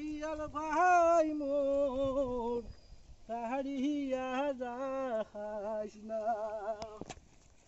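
A voice singing long, wavering notes in three drawn-out phrases, each sliding down in pitch, with short breaks between them.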